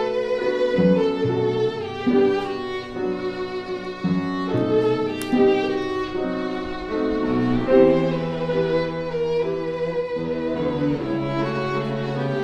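Instrumental music: a violin playing a melody with vibrato over lower held accompaniment notes.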